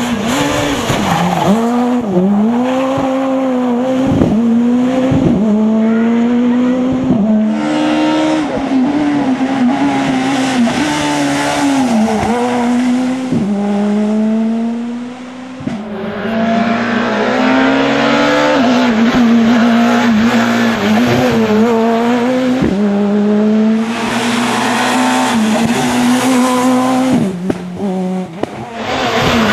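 Skoda Fabia S2000 rally car's naturally aspirated 2.0-litre four-cylinder engine at full throttle near the top of its revs as it passes on a rally stage. Its pitch dips sharply and climbs again at each gear change, over and over.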